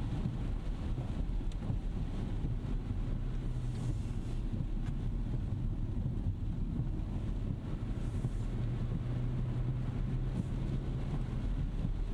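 Steady low rumble of a Rolls-Royce Ghost Series II driving on a wet road, tyre and road noise with a faint engine hum, and two brief soft swells of hiss along the way.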